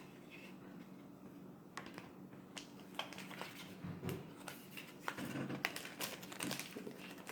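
Pokémon cards and booster packs being handled: scattered light clicks and taps with soft rustling.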